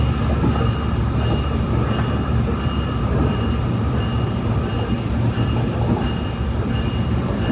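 SMART diesel multiple-unit railcar running at top speed, heard from aboard: a steady low rumble and rushing whoosh of the train on the rails, with a faint high whistle pulsing about twice a second.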